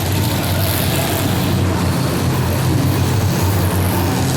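Demolition derby car engines running, a steady loud drone.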